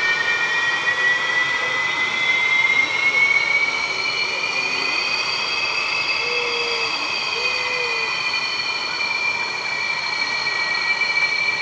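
Twin General Electric F404 jet engines of an F/A-18D Hornet taxiing: a steady jet whine, two high tones slowly rising and falling over a loud rush of exhaust noise.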